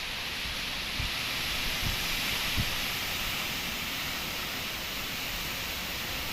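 Steady rain falling in wind, an even hiss throughout, with three brief low thumps in the first three seconds.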